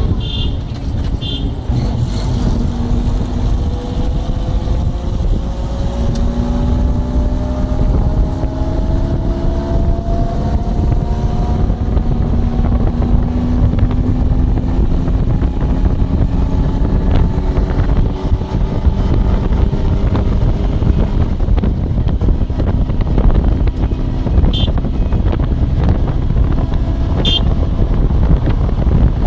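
Loud wind buffeting a phone's microphone from a car at speed, over a deep road rumble, with an engine note that climbs slowly in pitch through the first half. Short high chirps come twice near the start and twice near the end.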